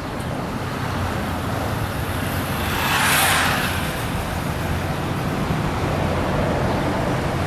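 Street traffic noise: a steady low engine rumble, with a louder whoosh that swells and fades about three seconds in.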